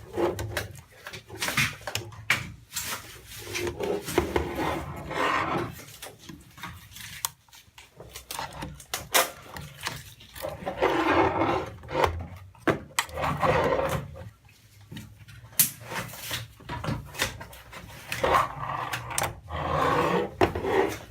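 Scattered clicks, knocks and rubbing from small drone parts being handled and pried apart while the DJI Phantom 3 gimbal is removed.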